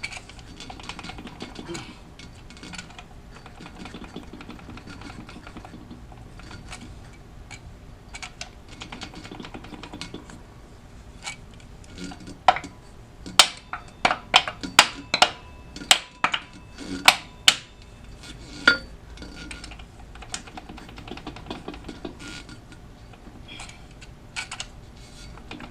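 Metal tools working on the parts of a seized engine: light clinks and scrapes, then a run of about ten sharp metal strikes, roughly two a second, in the middle.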